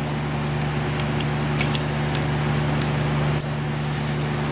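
A/C vacuum pump running with a steady, even hum as it pulls a vacuum on the truck's refrigerant system. A few faint clicks of a hand tool are heard over it.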